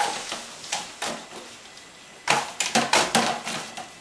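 A few scattered knocks, then a rapid flurry of about half a dozen sharp knocks and thumps a little over two seconds in.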